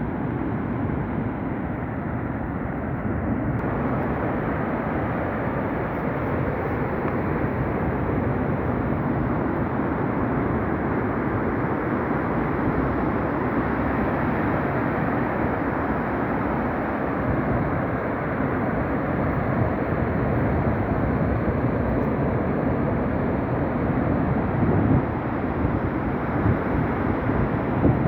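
Surf of a rough sea breaking on a beach: a continuous heavy rumble of waves with slight swells near the end.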